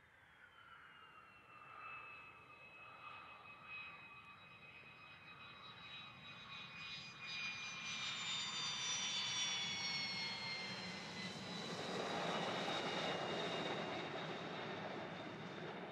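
F-16 fighter jet engines during take-off: high whines gliding down in pitch as the jets pass, under a rushing engine noise that grows and is loudest in the second half.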